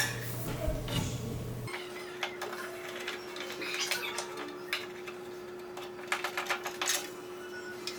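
Scattered light clicks and taps from handling the handsaw and its metal hardware, with a faint steady hum that sets in about two seconds in.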